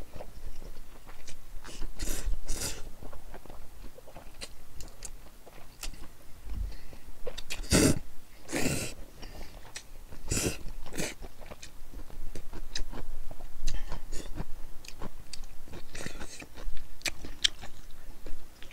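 Close-miked eating of cold naengmyeon noodles and grilled meat: wet chewing with many small mouth clicks and smacks, and a few louder noisy slurps and bites around the middle.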